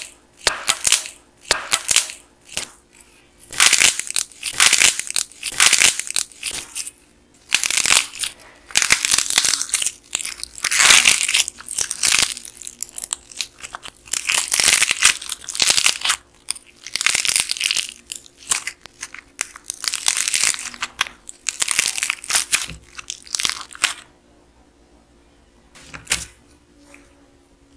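Churro-shaped clay toy cracking and tearing open as hands pull and squeeze it: its dried crust breaks away from the soft white clay inside in repeated crackling bursts. The cracking stops about three-quarters of the way through, and one short rustle comes near the end.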